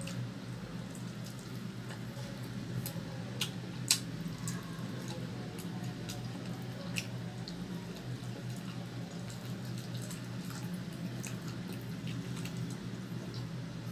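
Close-up eating sounds from chicken being chewed: wet, squishy chewing and mouth clicks, with one sharper click about four seconds in, over a steady low hum.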